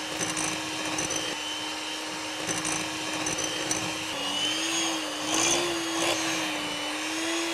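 Electric hand mixer running steadily, its beaters whipping egg white and sugar into royal icing in a glass bowl. The motor's pitch wavers from about halfway through.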